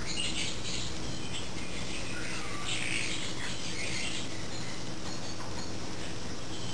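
Short bursts of high-pitched chirping calls, the strongest about three seconds in, over a steady low hum.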